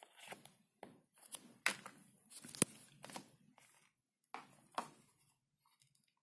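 Irregular rustling, scraping and tearing handling noises, with a sharp click a little over two and a half seconds in.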